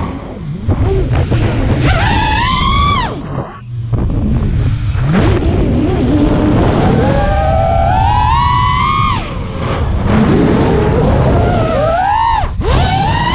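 Brushless motors and 5-inch props of an FPV quadcopter whining, the pitch swooping up and dropping away with each throttle punch. A low rumble of wind and prop wash runs underneath.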